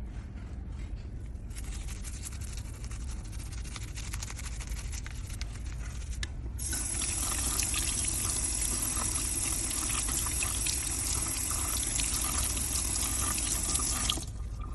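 Running tap water, a steady hiss that starts about halfway through and cuts off shortly before the end.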